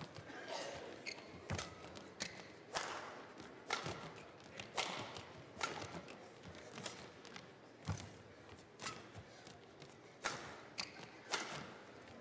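Badminton rally: sharp racket-on-shuttlecock hits roughly once a second, with the players' footsteps thudding on the court between them.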